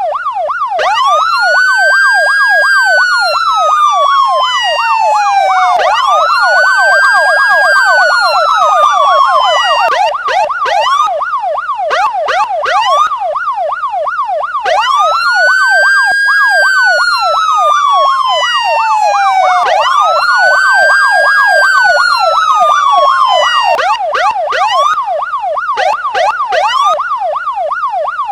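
Police car electronic siren, loud, sounding two patterns at once: a slow wail that climbs quickly and then glides down over a few seconds, repeating about every four to five seconds, over a fast yelp sweeping up and down several times a second.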